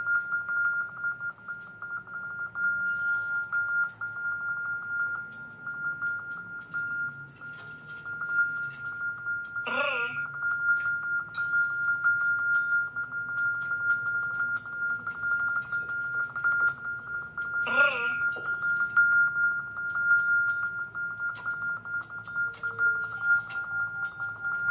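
Vibraphone played quietly: light mallet clicks and short notes over one steady high ringing tone, with a brief bright sound returning about every eight seconds.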